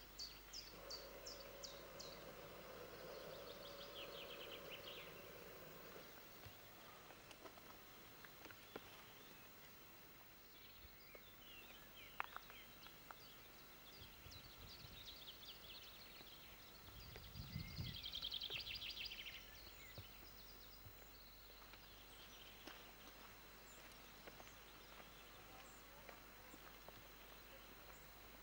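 Faint birdsong from small woodland birds: scattered short high chirps and rapid trills, with a low rumble about seventeen to nineteen seconds in.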